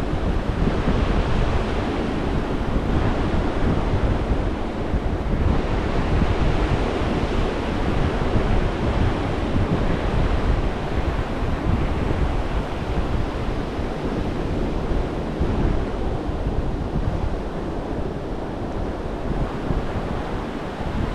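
Gulf of Mexico surf washing onto the beach, mixed with wind buffeting the microphone in a steady rumble.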